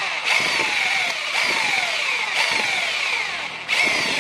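Electric drill boring a hole through flat steel bar: a steady motor whir with a cutting squeal that drops in pitch about once a second as the bit bites.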